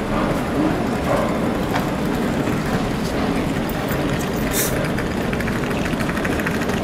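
Steady rumbling street noise of passing traffic, with a short hiss about four and a half seconds in.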